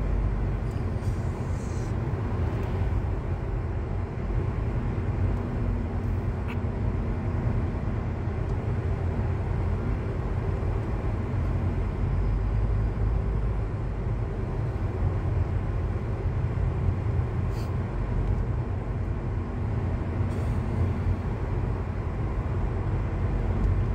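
Inside a moving car: a steady low rumble of road and engine noise while driving.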